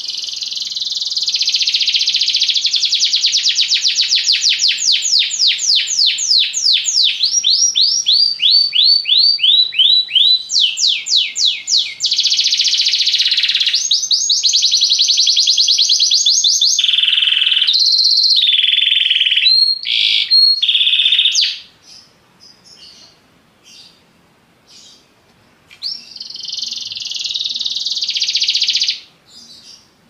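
Domestic canary singing: a long run of fast trills and rolls, with one stretch of repeated notes sweeping down in pitch. It breaks off about two-thirds of the way through and starts again with a short roll near the end.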